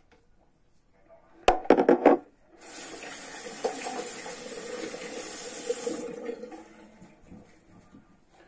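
A quick run of sharp knocks about a second and a half in, then a tap running water into a basin as a steady rush for about three seconds before it stops.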